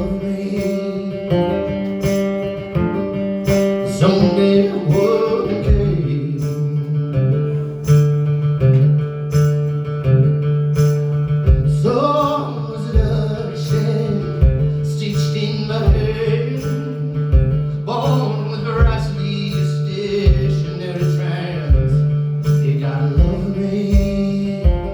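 Live band playing a song: guitar over a steady drum beat, with a singer's voice coming in and out.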